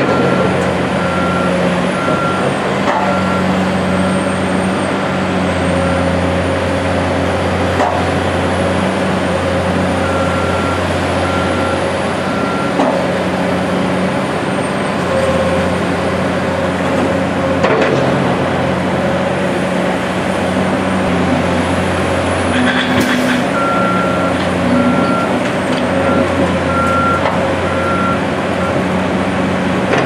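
CAT 345C hydraulic excavator's diesel engine running steadily as it digs and loads dirt into a dump truck, with a few short knocks. A vehicle backup alarm beeps in spells, near the start, in the middle and near the end.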